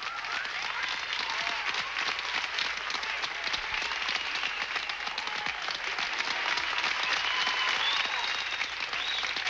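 A theatre audience applauding steadily, a dense crackle of clapping, with a few voices calling out over it.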